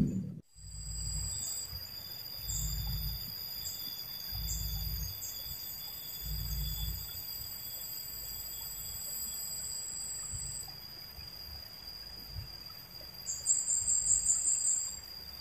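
Insects buzzing in steady high tones from the streamside vegetation, with a louder pulsing buzz near the end. Soft low rumbles come every couple of seconds underneath.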